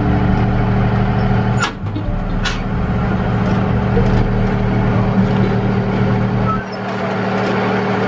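Lake ferry's engine running steadily while the boat lies berthed at the pier, with two brief sharp sounds about two seconds in. The deepest part of the engine sound drops away near the end.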